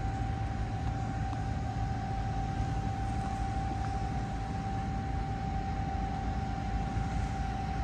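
Distant Scania S650 6x6 heavy-haul truck's V8 diesel engine running steadily under load as it hauls a wind-turbine blade, a low rumble with a steady high-pitched whine over it.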